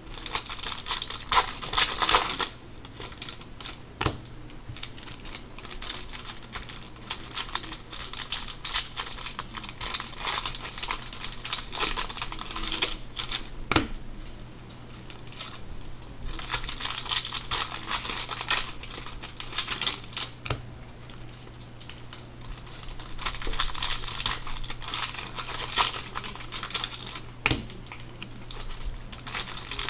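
Hands flipping and shuffling through a stack of Bowman Chrome trading cards, the stiff glossy cards sliding and clicking against each other in bursts of rustling, with a few sharp taps as cards are set down on the pile. A low steady hum runs underneath.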